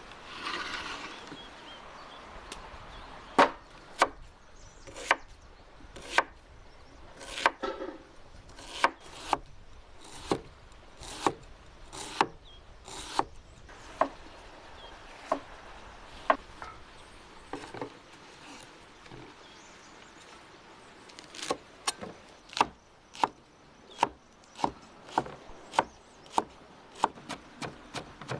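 Hammered-steel cleaver chopping onion and green peppers on a wooden cutting board: sharp single knocks about once a second, a short pause, then quicker chopping near the end.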